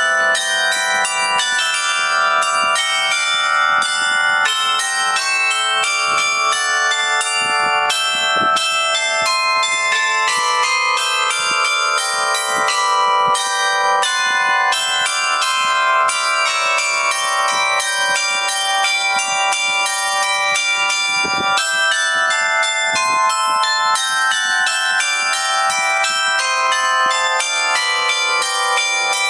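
Several church bells in a belfry ringing continuously, their strokes overlapping in a dense, unbroken peal.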